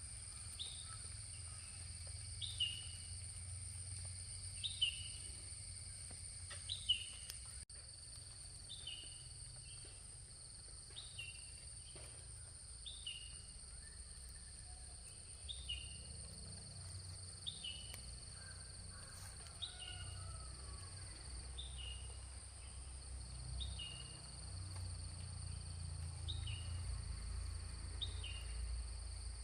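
A bird repeats a short call every second or two over a steady high-pitched insect drone, with a low rumble underneath that swells slightly later on.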